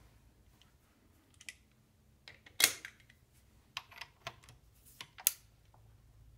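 A scattering of short, sharp clicks and taps, the loudest about two and a half seconds in and another near the end, over a faint low hum.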